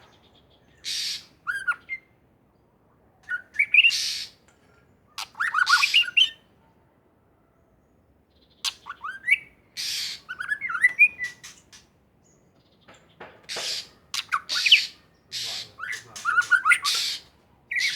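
White-rumped shama (murai batu) singing in short, loud phrases of harsh notes mixed with quick whistled slides, broken by pauses of a second or two.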